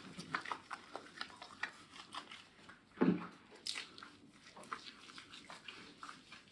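Soft wet squishing and crackling of hands massaging shampoo lather into a wet cat's fur, with one short louder sound about three seconds in.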